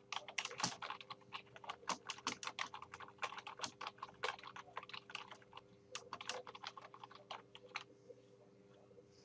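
Typing on a computer keyboard: a fast, irregular run of key clicks that stops near the end.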